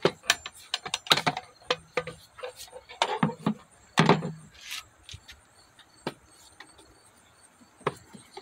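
Plastic air filter housing and cover of a 2006 Mitsubishi Outlander being handled: a quick run of clicks and knocks as the housing's clips are undone and the cover is lifted, busiest in the first few seconds, then a few single clicks.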